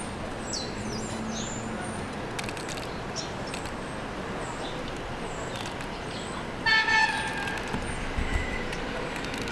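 Subway train horn giving a short double toot about two-thirds of the way in, over the steady running noise of an R46 subway train.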